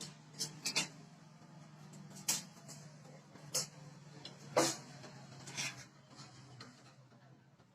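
Scattered light knocks and clicks, about seven, irregularly spaced over a faint steady hum.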